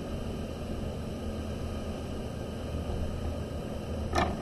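Steady low hum and hiss of background noise, with one short, sharp sound near the end.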